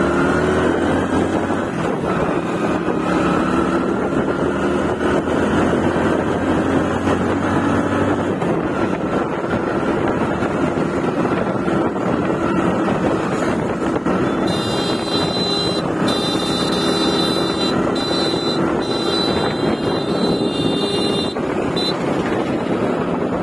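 Engine of a vehicle moving along a road, its note rising slowly over the first eight seconds or so and then holding steady, with wind buffeting the microphone.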